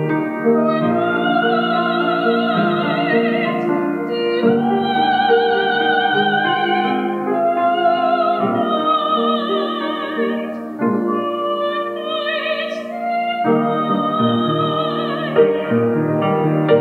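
A woman singing in a classical, operatic style with a wide vibrato, accompanying herself on a grand piano, in long held phrases with short breaths between them.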